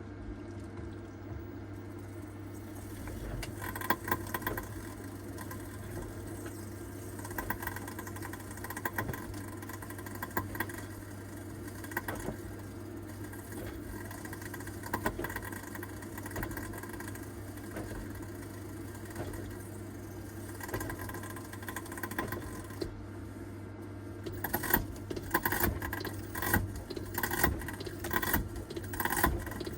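Panasonic NA-VG1100R drum washer-dryer running with a steady hum, over which come irregular clicks and knocks that grow denser and louder near the end; this is the abnormal noise (異音) the machine is making.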